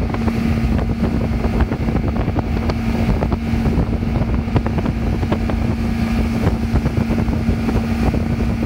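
Yamaha 115 outboard motor running at a steady pitch at planing speed while towing a water-skier, over the rushing of its churned wake.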